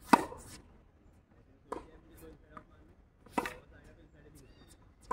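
Tennis ball struck by rackets in a rally: a sharp pop just after the start, the loudest, then two more hits about a second and a half apart.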